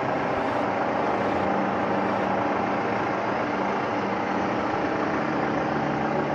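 A motor running steadily, a constant drone with a faint steady hum and no change in pace.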